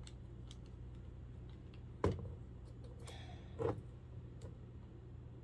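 Plastic parts and a circuit board of a clock radio being handled and taken apart. There are light scattered clicks and two sharper knocks, the loudest about two seconds in and another a second and a half later. A steady low hum runs underneath.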